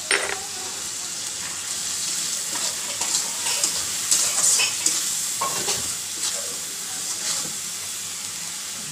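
Onions and freshly added ground spices sizzling in hot oil in a metal karahi. A metal spatula stirs and scrapes the pan in irregular strokes, the busiest about halfway through. This is the masala being fried down before the chicken goes in.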